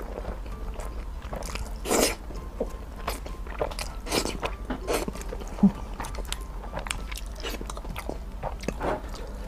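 Close-miked slurping and chewing of egg-fried noodles: wet mouth clicks and smacks throughout, with longer slurps about two and four seconds in, and a single brief dull bump just past the middle.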